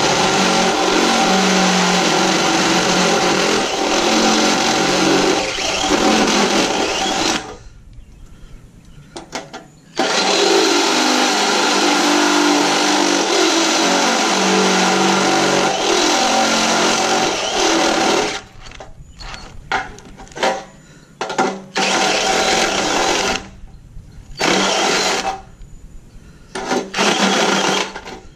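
Ryobi cordless drill running under load as it drills into a panel. It runs in long stretches with a pause about eight seconds in, then in a series of short bursts with stops through the second half.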